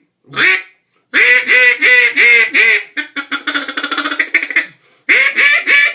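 Honduras cherry wood double-reed open-water duck call blown by mouth in mallard hen quacks: one short quack, then a string of about six quacks, then a fast stuttering chatter, then another string of quacks starting near the end.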